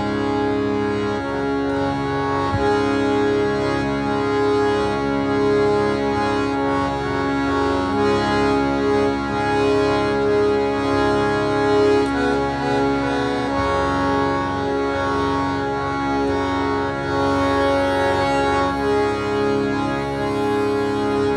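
Harmonium playing a melody over steadily held drone notes.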